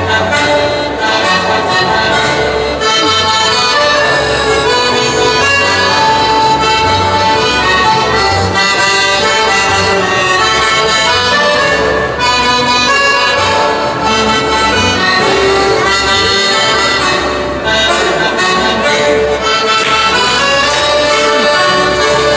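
Live traditional Friulian folk dance music led by accordion, with a double bass keeping a regular pulse underneath.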